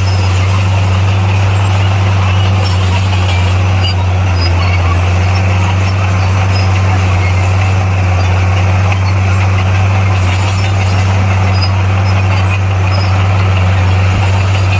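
Heavy diesel engine of a bulldozer running steadily at constant speed, a deep unchanging drone.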